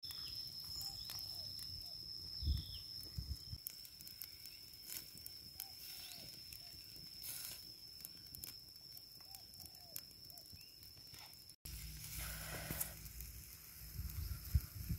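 Small wood fire crackling with scattered sharp pops under a spit-roasting chicken, with a steady high-pitched whine behind it until about eleven seconds in.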